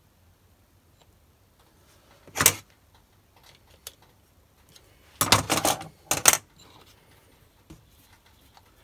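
Sharp metallic clicks and clacks from handling the steel parts of a BS-0 dividing head (index plate, sector arms, crank) and a steel rod on a metal bench: a single click about two and a half seconds in, then a quick cluster of clacks from about five to six and a half seconds.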